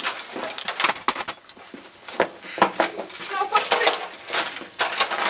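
Bicycles being pulled out and wheeled over brick paving: a rapid run of metal rattling, clicking and clinking from the bikes.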